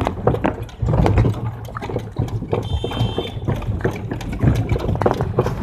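Horse-drawn cart rolling along a paved road: irregular knocks and rattles of the cart and the horse's hooves over a low rumble.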